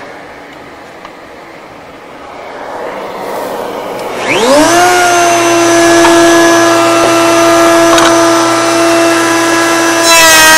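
Router in a router table switched on about four seconds in, spinning up with a quick rising whine and then running at a steady high whine. Near the end the whine wavers and grows louder as a cherry strip is fed into the bit to cut the hinge barrel.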